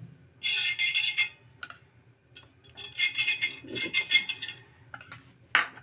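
A steel spoon scraping across a tawa (flat griddle) as ghee is spread over it, in two spells of scraping, then a sharp click near the end.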